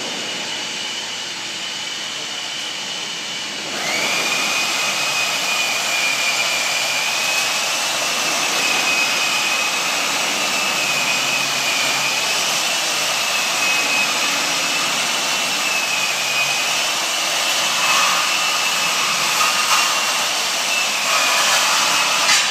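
Bandsaw running and cutting through 3-inch pipe. Its steady motor noise gets louder about four seconds in, as a high, slightly wavering whine of the blade in the cut sets in and holds.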